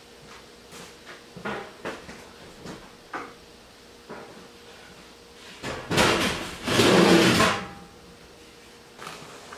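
Household items being handled and put away in a shed: a few light knocks, then two louder scraping clatters about six and seven seconds in, the second lasting close to a second.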